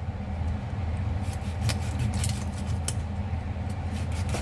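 A cleaver cutting and knocking through raw chicken pieces on a wooden cutting board: a few sharp, irregular knocks and clicks. Beneath them runs a steady low hum.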